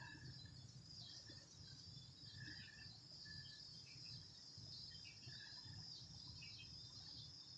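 Near silence with a faint, steady high insect trill, crickets by the sound of it, and a few faint short chirps scattered through.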